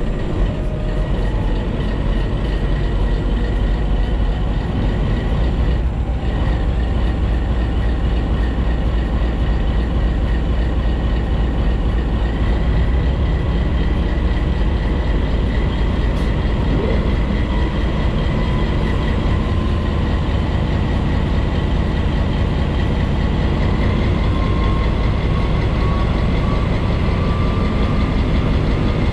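Diesel-electric freight locomotive running under load while hauling a coal train, heard close up from its own side: a steady, heavy engine drone mixed with running noise, and a whine that rises slowly near the end.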